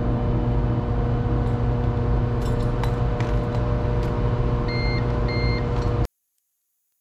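A steady electrical hum with a noise floor underneath, and two short high-pitched beeps from a CyberPower UPS alarm about five seconds in, as the UPS runs on battery. All sound cuts off abruptly about a second after the beeps.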